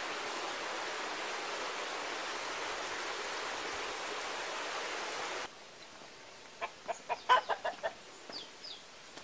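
A steady rushing noise cuts off suddenly a little past halfway. Then a chicken clucks in a quick run of about eight clucks, followed by two short, high, falling chirps from a small bird.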